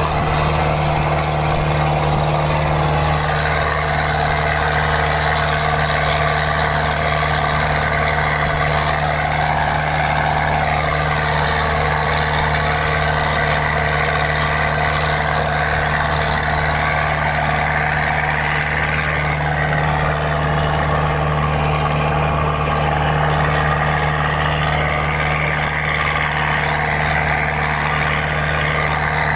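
Mitsubishi 4D31 four-cylinder diesel engine fitted in a boat, running steadily at a constant speed.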